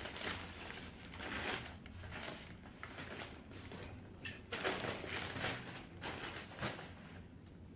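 Brown paper shopping bags rustling and crinkling as they are handled and pulled out of a large reusable tote bag, in uneven bursts, loudest about halfway through.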